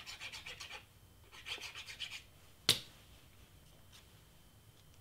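The nozzle of a glue bottle scratching along cardstock as glue is laid down, in two quick runs of rapid strokes. After a pause comes a single sharp tap, the loudest sound.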